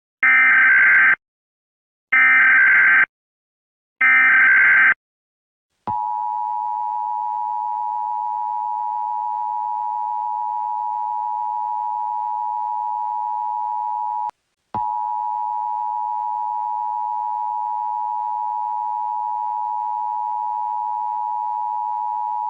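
Emergency Alert System tones: three one-second bursts of SAME header data, each about a second apart, followed by the steady two-tone EAS attention signal, which drops out for a moment about 14 seconds in and then resumes.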